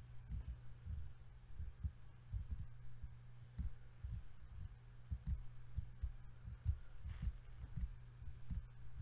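A steady low hum with soft, irregular low thumps over it, about one or two a second.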